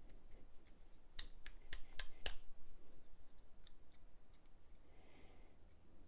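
Metal parts of a disassembled folding knife clicking as they are handled: about five sharp clicks in quick succession starting about a second in, then a couple of faint ticks.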